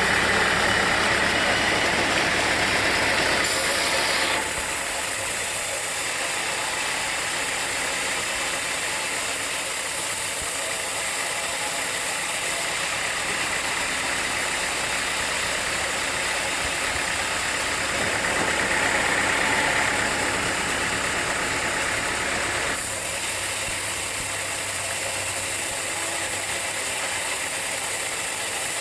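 Sawmill machinery running with a steady mechanical noise; the sound shifts abruptly about four seconds in and again near the end, with a louder stretch in between.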